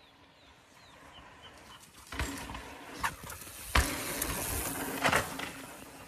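A mountain bike ridden past at speed on a dirt trail: tyres rushing over the dirt, with several sharp knocks and rattles from the bike. The loudest knock comes a little before four seconds in. Faint bird chirps come before the bike arrives.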